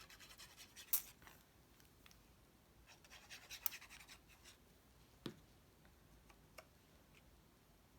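Cardstock panels handled and pressed down by hand onto a paper box blank: quick faint rubbing strokes at first, a sharp tap about a second in, a brief rustle with a click between three and four seconds, then a dull knock a little after five seconds and a few small ticks.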